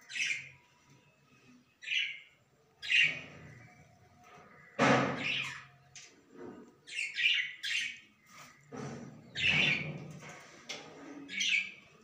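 Budgerigars chirping in a nest box: a string of short, sharp chirps, with two longer, harsher squawks about five and nine seconds in that are the loudest sounds.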